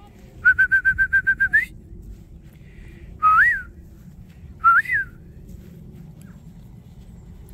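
A person whistling to call puppies: a quick trill of short pips lasting about a second and ending in an upward flick, then two short rising-and-falling whistles about a second and a half apart.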